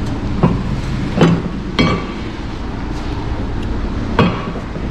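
Scrap metal clanking and knocking as it is handled, four sharp hits, over a steady low rumble.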